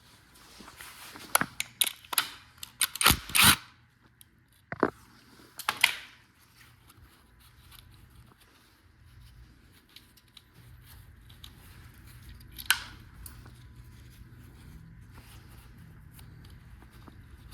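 A run of sharp clicks and clatters, bunched in the first few seconds with one more about twelve seconds in, typical of hand tools and parts being handled during engine work, over a faint steady low hum.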